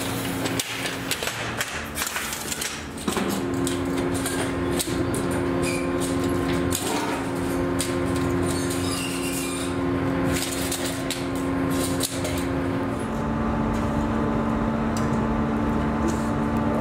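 Steel brake shoes and parts clinking and knocking as they are handled, with a steady machine hum coming in about three seconds in.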